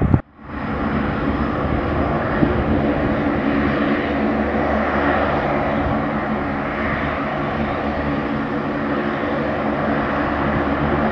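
Lockheed C-130J Hercules with four Rolls-Royce AE 2100D3 turboprop engines running while it taxis: a steady drone with a hum of low propeller tones. The sound cuts out for a moment just after the start, then picks up again.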